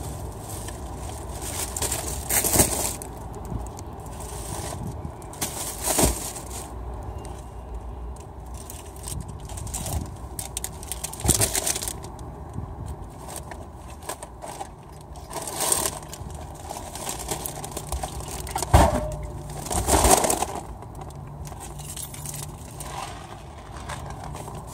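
Groceries being loaded into a car's trunk: tote bags rustling and bags and boxes being set down and shifted close by, with a sharp knock or thump every few seconds over steady low background noise.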